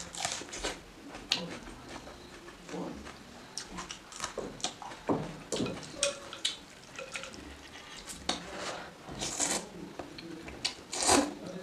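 Close-up eating sounds: a bite into a whole raw red onion at the start, chewing, wooden chopsticks knocking against a glass bowl, and noodles in spicy soup slurped in loud strokes near the end.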